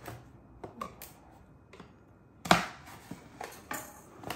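Kitchen knife slitting the packing tape on a cardboard box, then the cardboard flaps pulled open: a few short scrapes and clicks, with one sharp, loud crack of cardboard about two and a half seconds in.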